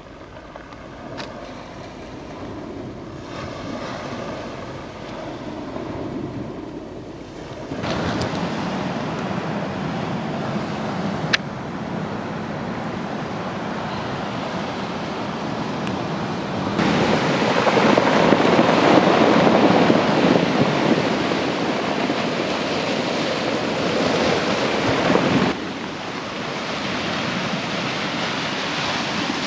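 Sea surf washing on a pebble shore, with wind buffeting the microphone. The noise jumps abruptly in level three times, and there is one sharp click about a third of the way through.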